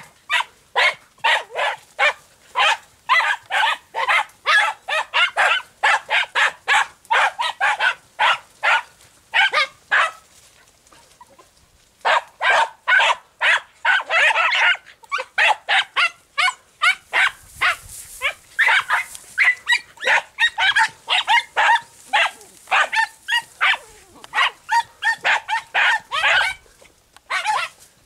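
Andalusian podenco hounds barking in rapid high yaps, about three a second, as they give tongue hunting a rabbit in thick scrub. The barking pauses for a couple of seconds about ten seconds in.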